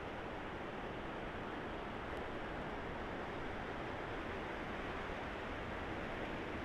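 Steady rushing noise of sea surf and wind at the shore.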